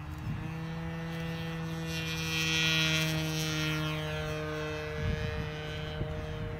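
Brand-new OS 55 AX two-stroke glow engine with a Pitts muffler, in an RC aerobatic plane, on its break-in run. Its pitch rises as it comes up to full throttle at the start, then holds a steady high drone. It is loudest about three seconds in as the plane passes, and eases off as the plane climbs away.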